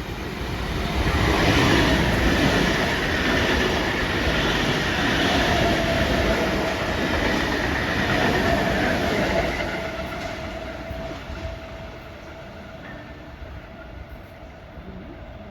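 A train passing at speed: loud wheel and rail noise with a steady high whine, building about a second in, holding for some eight seconds, then fading away.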